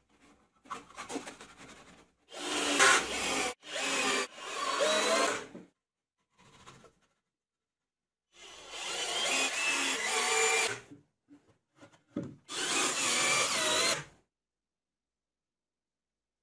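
Cordless drill running into the wooden shelf frame in four bursts of one to two seconds each, its pitch wavering as the bit works into the wood.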